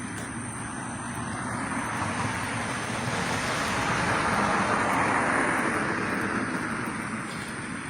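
A car passing by: a steady hiss of tyres and engine that swells to a peak about five seconds in, then fades away.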